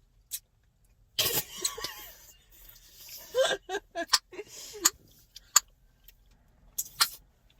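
Bubble gum being cracked and popped in the mouth: about half a dozen sharp pops, irregularly spaced, with brief voiced sounds in between.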